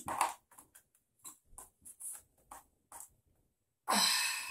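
Handling noise from an iMac's power cord and aluminium stand: a string of light clicks and ticks, then about half a second of scraping noise near the end as the cord is threaded through the hole in the stand.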